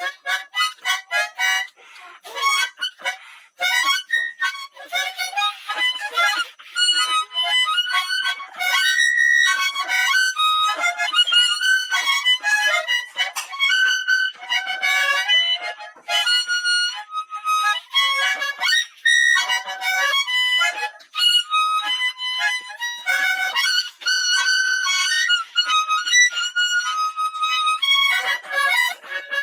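Harmonica played solo: a quick run of changing notes, with short breaks for breath and chords mixed in.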